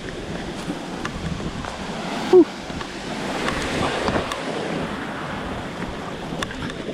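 Rushing river water, a steady hiss, with wind on the microphone. A brief, loud pitched sound cuts in about two seconds in.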